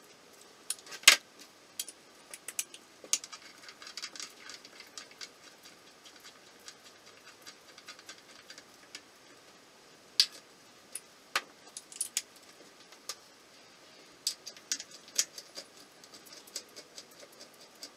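Socket ratchet clicking in short irregular runs as the bolts of a Honda CB350's crankcase halves are run in snug. Sharper single metal clicks stand out about a second in and again around ten and eleven seconds.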